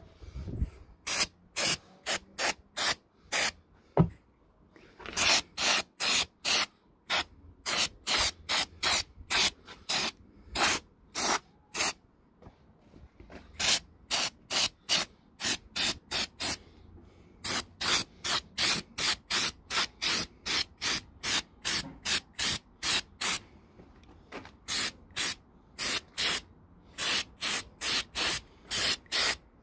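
Aerosol spray-paint can sprayed in many short hissing bursts, about two a second, in runs broken by brief pauses. A single sharp knock about four seconds in.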